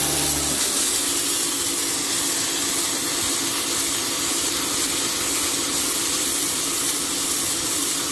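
WHOLESUN 3000 PSI electric pressure washer running steadily under load: the motor and pump hum under the loud hiss of a 0-degree pencil-nozzle jet blasting concrete. A deeper low drone drops out about half a second in.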